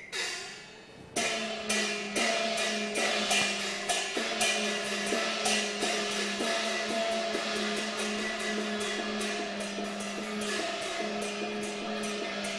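Cantonese opera instrumental ensemble playing the introduction to a song: a sustained low note with melodic lines over it, punctuated by regular sharp percussion strikes, coming in sharply about a second in.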